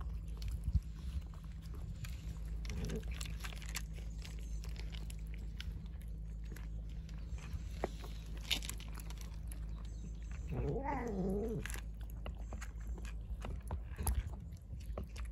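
Two cats eating close up: wet lapping and smacking at wet cat food and crunching of dry kibble, a dense run of small clicks. A short wavering cry sounds about two-thirds of the way through.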